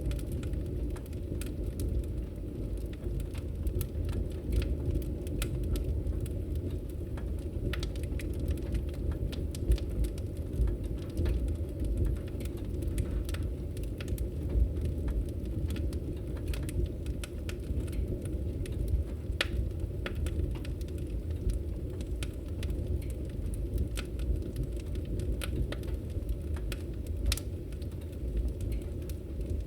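Wood fire burning logs in a fireplace: steady crackling, with sharp snaps and pops at irregular moments over a low rumble of flames.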